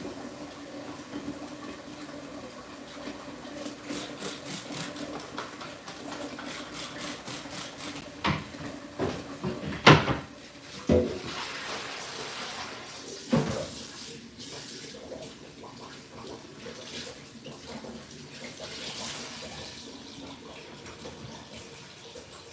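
Water running from a kitchen tap into a sink during washing up, with a few sharp knocks and clatters midway through.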